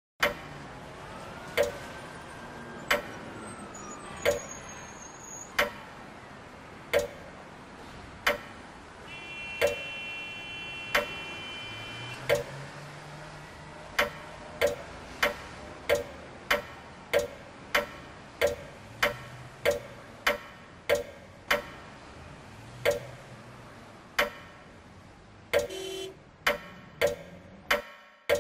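Clock ticking sound effect over a steady background hiss: single ticks about every second and a half, doubling in pace about halfway through and quickening further near the end, building tension.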